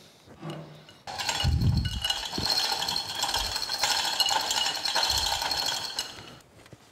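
Steel chain of a gantry chain hoist rattling and clinking as it is handled, running for about five seconds with a dull knock near its start.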